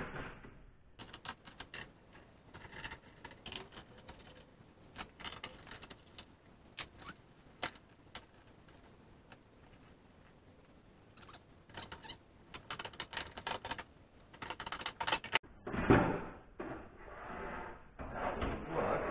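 Irregular clicks, knocks and rattles of hand tools and metal parts inside a car door as the window regulator is unbolted and worked loose. The sound changes suddenly about 15 seconds in, and after that the knocks and rattles are louder.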